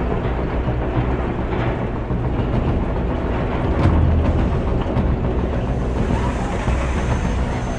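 Roller coaster train running fast along its steel track: a steady low rumble with rushing wind and occasional knocks.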